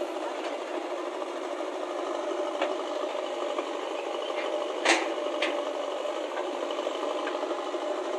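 Diesel engines of a JCB backhoe loader and a Massey Ferguson tractor running steadily as the backhoe works its digging arm, with a few light clicks and one sharp knock about five seconds in.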